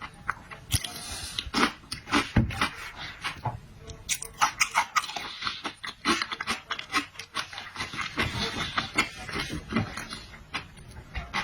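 Close-miked wet chewing, sucking and smacking sounds of someone eating marinated shrimp, with dense irregular clicks and crunches.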